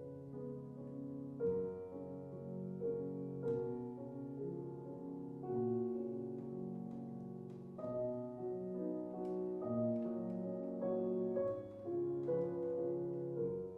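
Solo piano playing a slow classical passage, chords and melody notes struck about once a second and left to ring.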